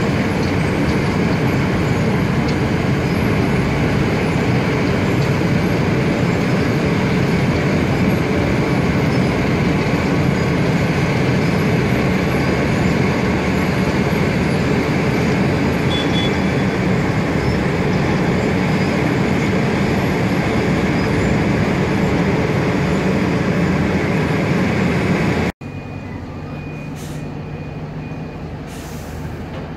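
Heavy diesel road-paving machinery running steadily: an asphalt paver and a tandem road roller laying and compacting fresh asphalt. Near the end it cuts abruptly to a quieter, steadier engine hum.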